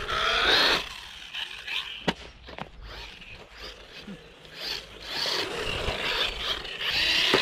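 Xinlehong Q901 1/16-scale brushless RC buggy driving: its electric motor whines, rising and falling in pitch as the throttle comes on and off, over rasping running noise, with a couple of sharp knocks about two seconds in.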